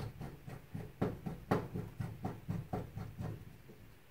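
Light, irregular clicks and taps of metal gas-burner parts and screws being handled and fitted by hand, about three to four a second, growing fainter near the end.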